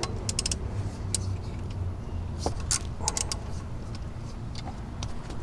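Socket ratchet clicking in short quick runs as a 5/8 socket works loose an alternator mounting bolt, over a steady low rumble.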